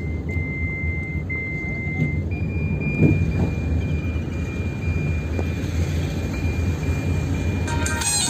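Road noise inside a moving car: a steady low rumble of engine and tyres, with a thin steady high-pitched tone over it. Music comes in right at the end.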